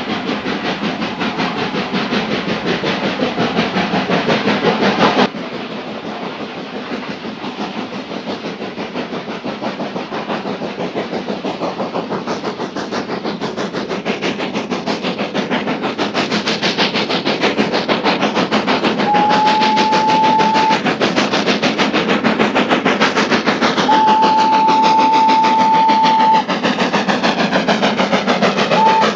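Steam locomotive running with a passenger train, its exhaust chuffing in a rapid steady beat that grows louder as it approaches. A steam whistle sounds twice in the second half, first about a second and a half long and then about two and a half seconds, with a short toot near the end.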